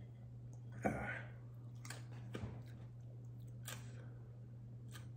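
A few light clicks and taps of a knife and pieces of a tortilla chip on a plate, with one louder short noise about a second in, over a steady low hum.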